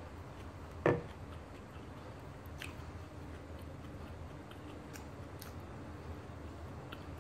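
Close-up eating sounds: faint chewing and small clicks from the mouth and fingers as flaky roti prata is torn and eaten by hand, with one brief louder sound about a second in.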